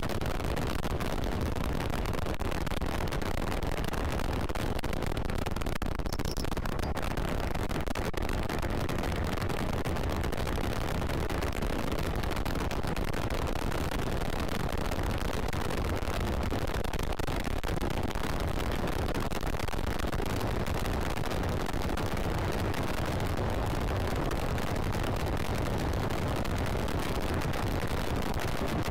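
Steady wind rush buffeting the microphone of a scooter riding at speed.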